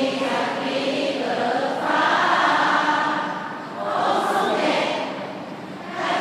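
A large crowd singing together in unison, in long held phrases with short breaks between them.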